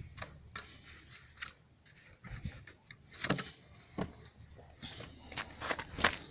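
A few scattered knocks and clicks, irregular and separate, with quiet between them and no engine running.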